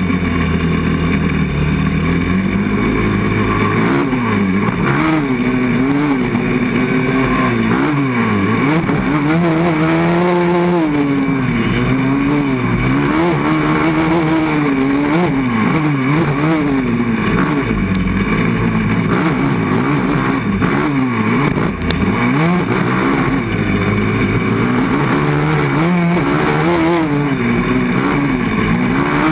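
Yamaha 450 sport quad's single-cylinder four-stroke engine under hard riding, heard from on board. Its revs climb and drop over and over as the throttle is worked.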